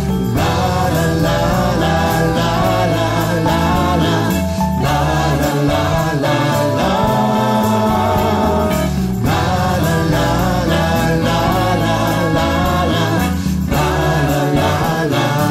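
Instrumental passage of a Christian gospel song, with phrases that break and restart about every four and a half seconds.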